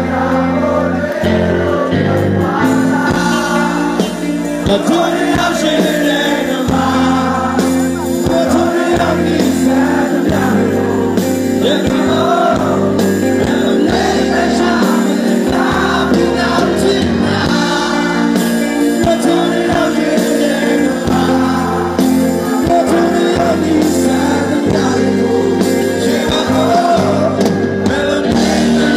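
Burmese-language song: singing over band accompaniment.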